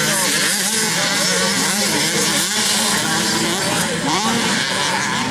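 Motocross bike engines revving on a dirt track, the pitch climbing and dropping again and again as the riders throttle up and shift.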